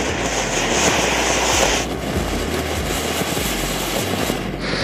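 Fountain firework spraying sparks with a loud rushing hiss that is strongest for about the first two seconds, over the crackle of burning matchsticks.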